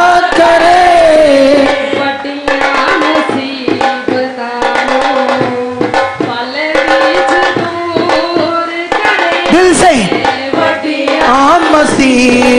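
A woman singing a worship song into a microphone, amplified, over hand-drum accompaniment in a steady rhythm.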